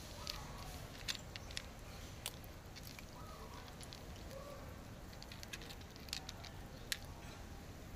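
Two cats crunching dry kibble: irregular sharp crunches and clicks as they chew.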